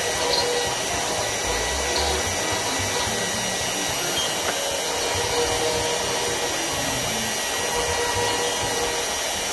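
Router spindle on a Shark HD5 CNC running steadily while a 60° V-bit engraves small lettering into a wood panel: a steady whine over a rushing noise.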